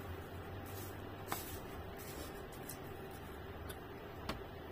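Metal spoon clicking while eating rice off a plastic wrapper: a sharp tick about a second in and another near the end, over a steady low room hum.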